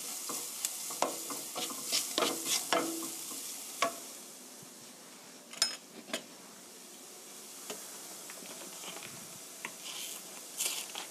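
A wooden spatula stirring and scraping diced onion, garlic and carrot with flour in a sizzling frying pan, toasting the flour for a cream sauce. The stirring stops about four seconds in, leaving a soft steady sizzle, with a sharp click about a second later and a few crinkly clicks near the end as a paper milk carton is opened.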